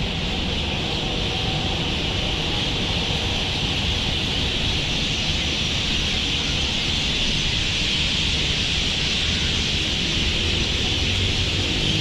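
Steady outdoor background noise: a constant high hiss over a low, uneven rumble, with no distinct events.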